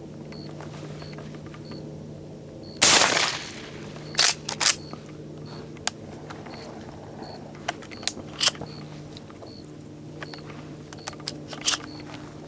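A single shotgun shot about three seconds in, loud and ringing briefly, followed by scattered sharp clicks and knocks.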